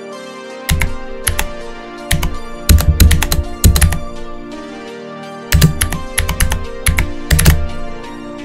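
Computer keyboard typing in three bursts of quick, irregular keystrokes, over background music with sustained tones.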